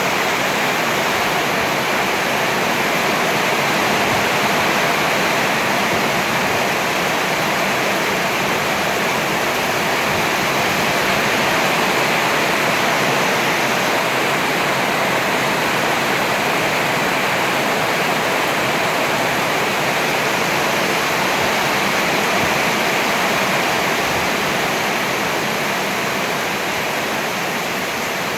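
Heavy rain pouring down steadily, a loud even hiss that eases slightly near the end.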